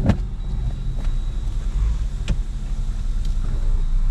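Off-road vehicle running at low speed, heard from on board: a steady low engine rumble with a few sharp knocks, the loudest just at the start.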